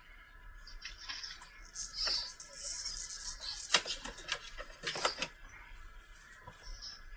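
Remote-control crawler truck working: about two seconds in, a few seconds of hissing and scraping with several sharp clicks and knocks, over a faint steady high electronic whine.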